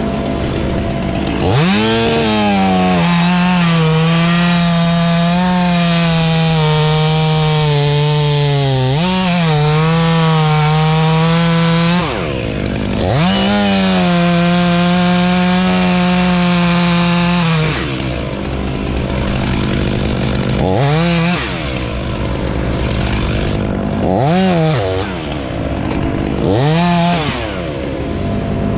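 Two-stroke chainsaw at full throttle through two long cuts, the engine note sagging slightly under load. It is then blipped three times in short bursts.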